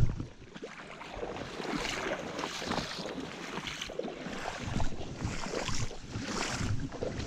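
Shallow spring-creek water running over weed beds, with irregular crunching and rustling from steps along the bank and a few louder swells of noise.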